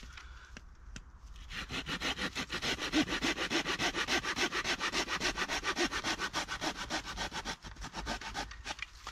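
Hand saw cutting through a dead branch for firewood, in quick even strokes, about five a second. The sawing starts about a second and a half in and stops near the end, with a few slower scrapes before and after.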